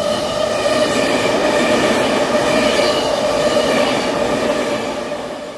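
Steady train running noise, an even rumble with a faint steady whine in it, fading out near the end.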